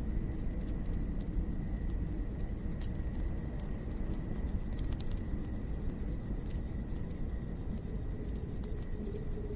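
Wood fire crackling, with a steady low rumble and scattered small pops, under a steady high chirring.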